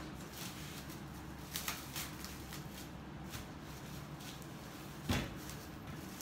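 Thin plastic bag rustling and crinkling as a ball of pie dough is handled and wrapped in it. There are a few light taps, and a soft thump about five seconds in.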